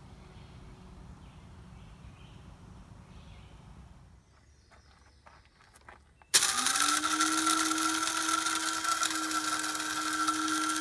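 An electric coffee grinder switches on about six seconds in, spins up with a short rising whine, and then runs steadily and loudly. Before it come a few faint clicks.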